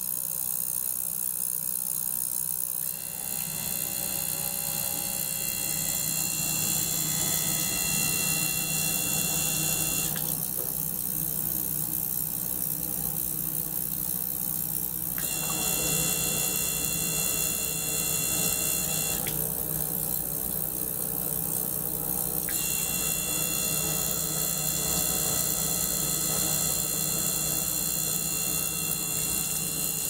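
Small ultrasonic cleaner running with a small pump circulating its water: a steady electric buzz and hum, with high thin tones that switch on and off in stretches of several seconds.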